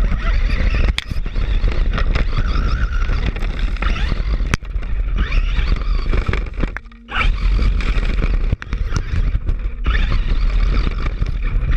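Electric RC buggy (Traxxas Bandit with a Castle Sidewinder 3 brushless system) driving over rough ground, heard from a camera mounted on the car. The motor whine rises and falls under heavy rumble, rattle and scraping from the chassis and tyres. The sound drops out briefly about seven seconds in.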